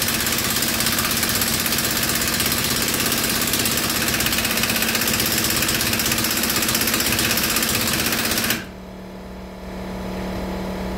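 Impact wrench hammering steadily on a brake caliper mounting bolt, trying to break it loose; it stops suddenly about eight and a half seconds in, leaving a low steady hum.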